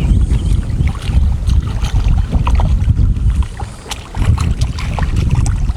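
Strong wind buffeting the microphone in gusts, a loud low rumble that eases briefly about four seconds in, with a few faint ticks over it.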